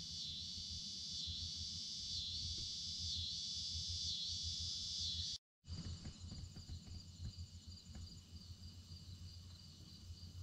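Summer insect chorus: a dense high-pitched buzz that swells and fades in quick, even pulses over a low rumble. About halfway through it cuts off abruptly and gives way to a fainter insect chorus with a fine, rapid trill.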